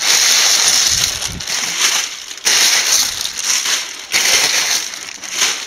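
Crumpled white packing paper rustling and crinkling loudly as a hand rummages through it and pulls it out of a cardboard box, in three long surges.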